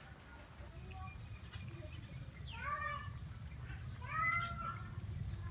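Puppy whining: two short, high-pitched whines, about two and a half and four seconds in, over a low steady rumble.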